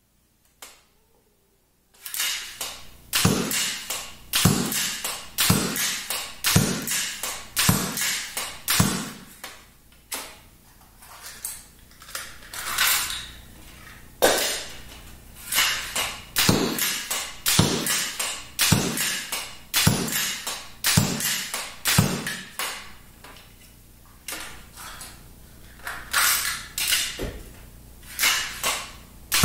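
A 3D-printed pump-action repeating mini bow being cocked and shot over and over: sharp plastic clacks of the sliding pump and the string's release, about one shot a second, with the bolts striking the archery target mat. The shooting starts after about two seconds of quiet and breaks off briefly twice.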